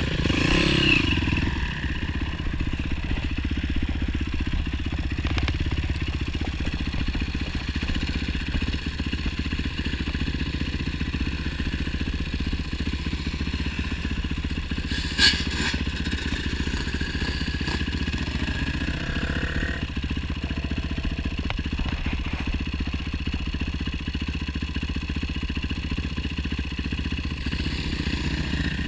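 Motorcycle engine running steadily with some rattling, and one sharp click about halfway through.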